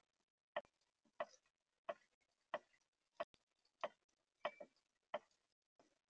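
Male northern cardinal cracking seeds in its bill right at the feeder camera: short, sharp clicks at a steady pace of about one every two-thirds of a second.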